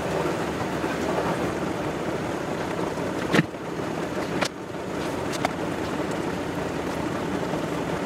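Steady rushing background noise, broken by a few sharp knocks as a handheld clamp meter is handled and set down on a tiled floor. The loudest knock comes a little over three seconds in, with two lighter ones over the next two seconds.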